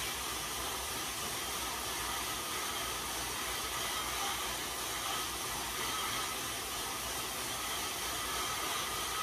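Steady whirring hiss of a Cervelo road bike's tyres spinning on InsideRide indoor rollers under continuous pedalling.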